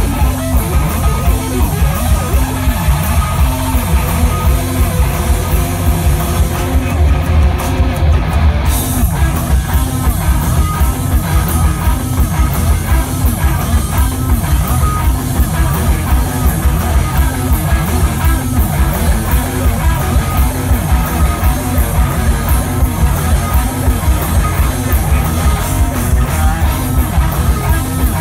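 Live rock band playing loud: electric guitars, bass guitar and a drum kit keeping a steady beat. The cymbals drop out briefly about seven seconds in, then come back with a crash.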